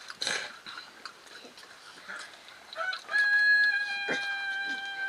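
A rooster crowing once, starting about three seconds in: one long held call that drops off at the end.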